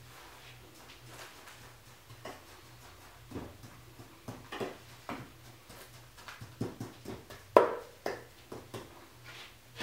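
Damp sugar candy mix being packed and pressed into a wooden hive candy board with a hand tool: irregular soft scrapes and taps, with one sharp knock about seven and a half seconds in.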